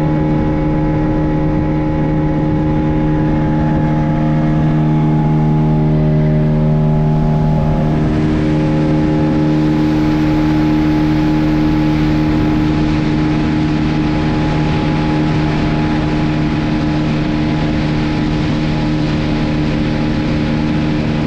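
Speed boat's engine running steadily at speed. From about eight seconds in, a rushing noise of water and wind rises alongside it.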